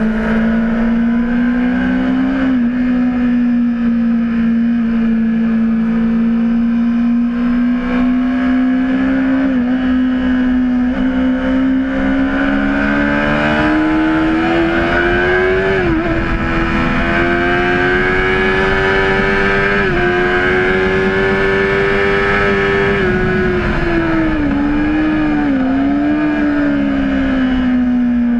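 Honda CBR600RR's inline-four engine running hard at high revs, heard from on board. The pitch holds steady at first, then climbs slowly through the middle with a few abrupt steps, and falls away with a short wobble near the end.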